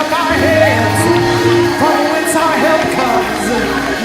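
Church worship music: held chords with many voices singing and calling out together over them, and faint cymbal-like hiss strokes about once a second.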